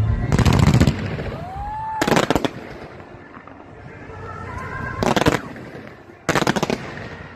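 Fireworks going off close by in four bursts of rapid crackling: one just after the start, one at about two seconds, one at about five seconds and one at about six and a half seconds. A short whistle rises and then falls between the first two bursts.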